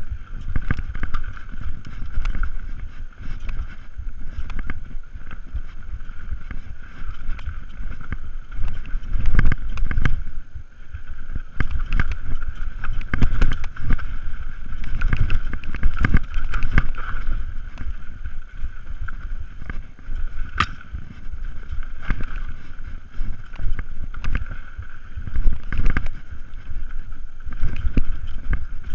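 Mountain bike riding fast down a rough dirt trail: wind rushing over the camera microphone, with the bike rattling and thumping irregularly over bumps and a steady high buzz underneath. A single sharp click a little past two-thirds of the way through.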